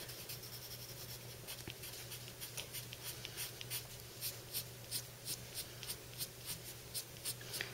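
Graphite pencil scratching on paper in short, quick flicking strokes as fur lines are drawn. The strokes are irregular at first, then settle into an even rhythm of about three a second about halfway through.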